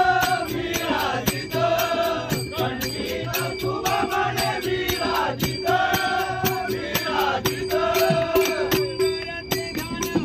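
Marathi devotional bhajan: singers chanting an abhang in long held phrases over a steady sustained note, with a regular beat of sharp metallic strokes from small hand cymbals.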